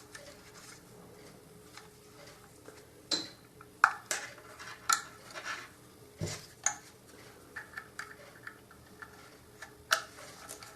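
Scattered sharp clicks and light knocks of plastic vacuum cleaner parts handled by hand as a thermal sensor is pressed into its hole in the housing, with one duller, deeper knock about six seconds in.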